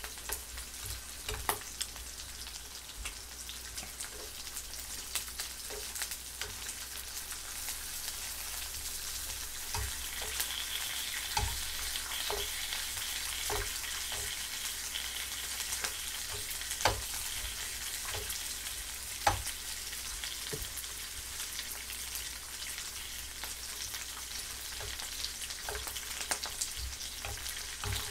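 Pork belly pieces sizzling in a frying pan, a steady hiss, with metal tongs clicking and scraping against the pan in scattered sharp knocks as the pieces are turned.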